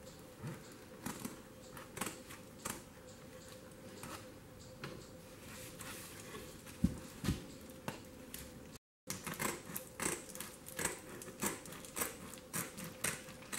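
Scissors cutting a circle out of a yurt's canvas side cover and insulation: a string of irregular snips, with a short break about nine seconds in and quicker snips after it.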